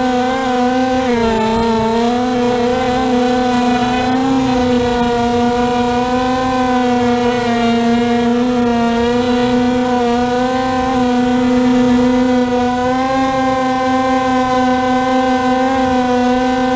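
Propellers and motors of a W500 VTOL model plane, heard up close from its onboard camera: a loud steady whining hum that wavers a little in pitch in the first few seconds, then holds even.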